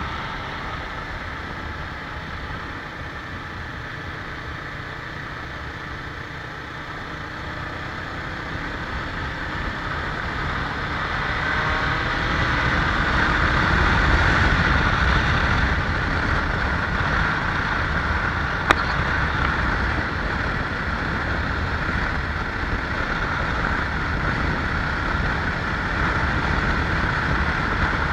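A vehicle's engine with road and wind noise while travelling, speeding up with a rising engine note about ten seconds in, then running on steadily. A single sharp tick sounds about two-thirds of the way through.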